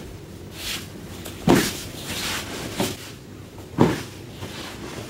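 Thuds of a body and hands hitting a foam judo-style mat as a partner is taken down and pinned in an aikido ikkyo: three sudden thuds, the middle one weaker, with softer rustling between.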